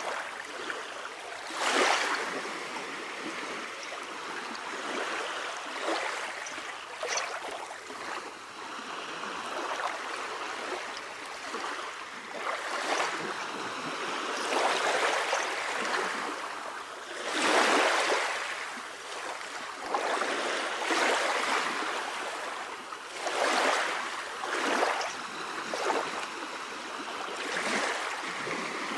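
Moving water: a steady rushing wash that swells and falls back every two to five seconds.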